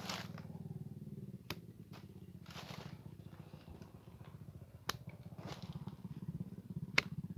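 Hand pruning shears snipping quince branches: three sharp snips, the last the loudest near the end, with brief rustling of the branches between cuts. A steady low hum runs underneath.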